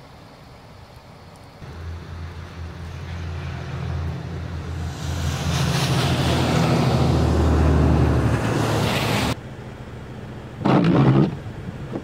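A motor vehicle going by on a snowy road: a low engine hum and a tyre hiss that grows louder and then stops abruptly about nine seconds in. A shorter, louder burst of sound follows about a second and a half later.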